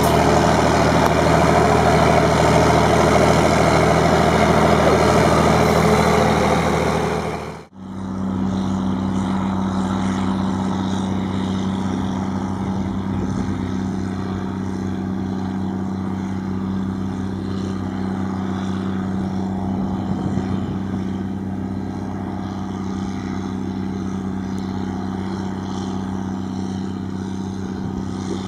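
Heavy diesel engines of harvest machinery running steadily. About eight seconds in, the sound breaks off sharply and a different, quieter engine takes over with a steady low hum.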